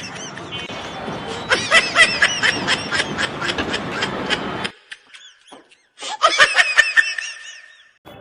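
Laughter in rapid, high-pitched bursts that stops abruptly about four and a half seconds in, then a second run of laughter from about six to eight seconds in.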